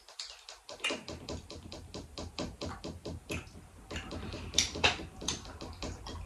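A person chewing a crunchy sugar-topped Britannia Little Hearts biscuit close to the microphone: a quick run of small crisp crunches, several a second, a few louder ones past the middle.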